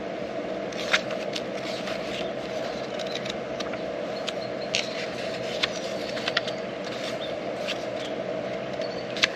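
Small handling noises: scattered light clicks and scrapes of plastic parts and paper being handled, over a steady low hum.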